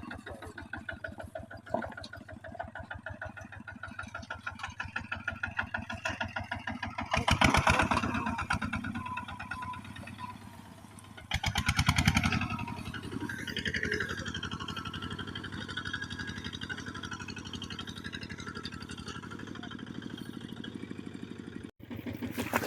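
A small engine running with an even, rapid firing beat, revved up twice: once about seven seconds in and again about twelve seconds in.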